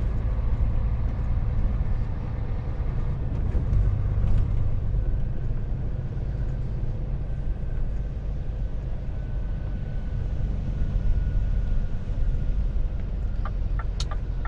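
Scania truck heard from inside the cab while driving: a steady low engine rumble with tyre noise from the wet road. Near the end a run of quick, evenly spaced ticks starts.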